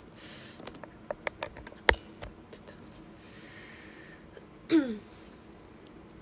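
Handling noise from a phone being set up: a quick run of sharp clicks and taps about a second in, the loudest with a dull thump. It is followed by a breathy exhale and, near the end, a short falling sigh from a woman's voice.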